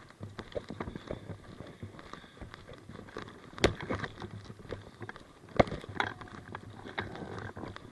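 Footsteps of a player moving over rough ground, with two louder sharp cracks about two seconds apart.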